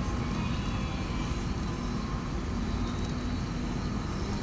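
Steady engine and tyre noise of a vehicle driving along, heard from inside the cab: a constant low hum with an even road rumble.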